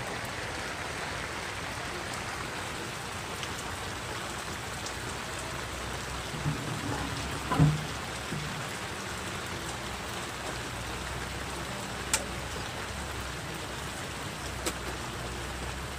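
Steady rain falling on open lake water and the surrounding leaves, an even hiss of drops. About halfway through there is one dull thump, the loudest moment, and near the end two brief sharp ticks.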